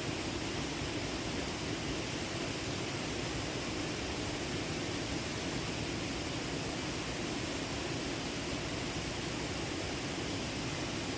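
Steady rushing noise of the Stokes Creek waterfall, an even roar of falling water with no breaks.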